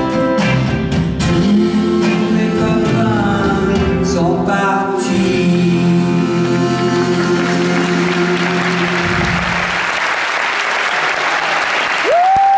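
Live pop band and singers finish a song on a long held final chord that cuts off about nine seconds in, while the audience applauds over the ending and after it. A steady high tone starts right at the end.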